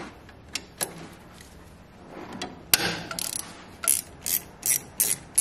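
Socket ratchet clicking as it loosens the 10 mm bolt on the turbocharger's oil feed line: a few separate clicks, then steady ratcheting strokes about two or three a second from about four seconds in.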